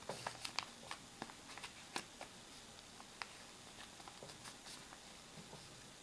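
A sheet of origami paper crackling as it is folded and creased by hand: a run of crisp little ticks, thickest in the first two seconds and thinning out after.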